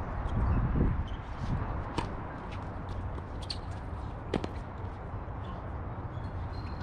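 A few sharp knocks of tennis balls being hit and bouncing on the hard courts, the loudest about four seconds in, over a low rumble that is strongest in the first second.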